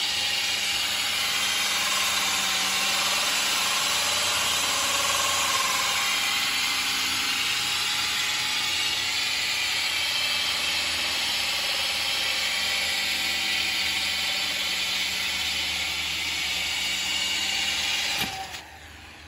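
Cordless drill running steadily, its diamond hole saw grinding into mirror glass under a pool of water coolant, the drill held at an even, constant speed. It cuts off abruptly near the end as the hole is finished.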